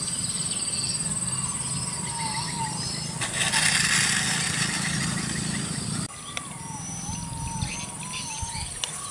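A micro foam RC plane's small electric motors and propellers whine with a wavering pitch, with a louder rush of propeller noise in the middle during the takeoff roll. Insects buzz steadily and birds chirp behind it.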